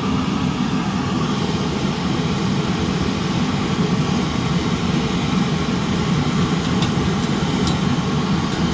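Two Swiss army petrol vaporising burner stoves (Benzinvergaser-Brenner) burning, a steady low rushing noise with an even hiss over it, the flames held clean with the taps turned low. A couple of faint ticks sound near the end.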